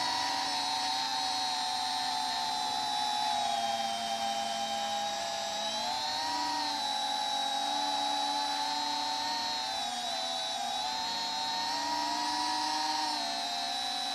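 Holybro Kopis 3-inch cinewhoop's brushless motors and ducted propellers whining in flight. The pitch glides up and down with the throttle, rising about six seconds in, dipping near ten seconds and rising again before falling near the end.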